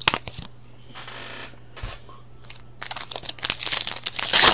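A foil hockey card pack being torn open and crinkled by hand: a few light clicks and a short soft rustle, then loud, busy crinkling from about three seconds in.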